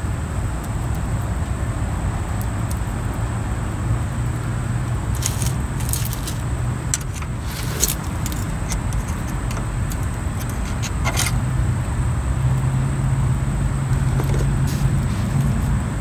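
A few short metal clicks and scrapes as a screwdriver works the nut retainer off the front wheel spindle nut of a 1963 Mercury Monterey drum-brake hub, over a steady low hum.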